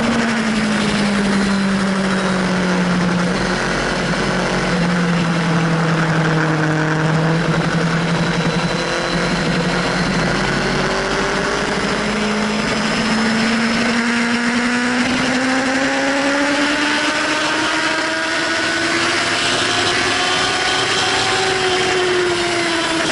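Sport motorcycle engine heard from on board, its pitch dropping into a corner, holding low through it, then climbing steadily for about ten seconds as the bike accelerates onto a straight. Wind rushes over the microphone throughout.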